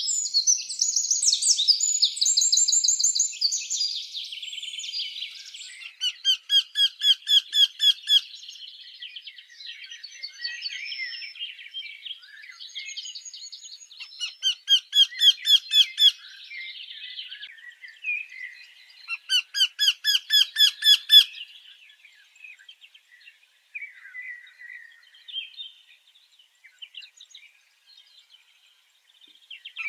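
Several birds singing and calling together, a dense chorus at first that thins to scattered chirps near the end. Three times, a loud song of rapid repeated notes lasting about two seconds rings out over the rest.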